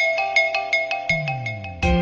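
Marimba-style smartphone ringtone: a quick run of bright struck notes, with a low tone sliding downward from about halfway. Just before the end a louder, fuller electronic tune starts abruptly.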